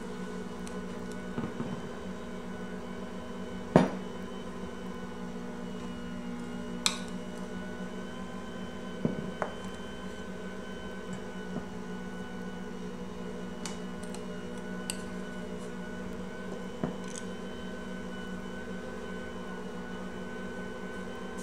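A plastic measuring cup scooping flour and knocking against the mixing bowls, giving a few sharp clicks, the loudest about four seconds in, over a steady electric hum.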